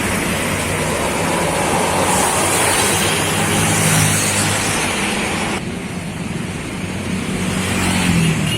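Road traffic: a bus's diesel engine running as it passes, over steady road and tyre noise.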